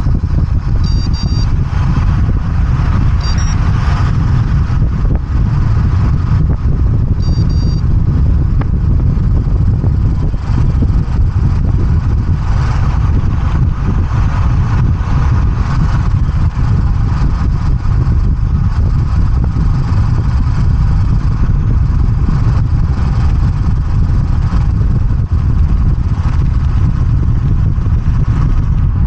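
A loud, steady low rumble with no words over it. Three short high beeps or chirps come about one, three and seven seconds in.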